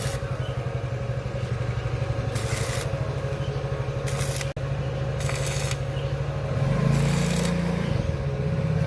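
An engine running steadily close by, with short hissing bursts every second or two.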